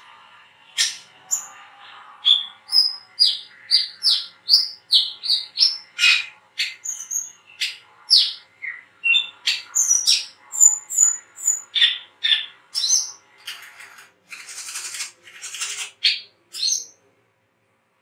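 Brown-throated sunbird (wiceh) singing a fast run of short, sharp chirps and thin high whistles, about two to three notes a second. Near the end come a couple of longer, raspy calls.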